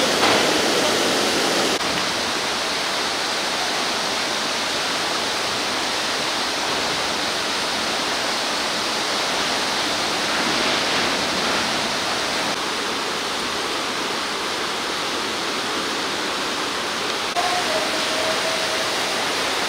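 Steady rush of floodwater: a swollen, muddy river running fast and churning, with water spilling over a weir.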